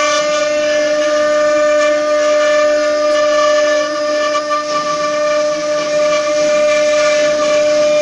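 Multi-spindle 4-axis CNC wood router cutting: the spindles give a steady whine with several overtones, over a hiss of cutting noise as the bits carve wooden pieces turning on rotary axes.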